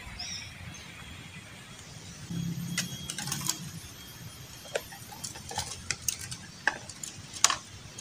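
A hand working at a wooden bird cage, rattling its bars and cups in a scattered run of sharp clicks and knocks, the loudest near the end. There is a brief low hum about two seconds in.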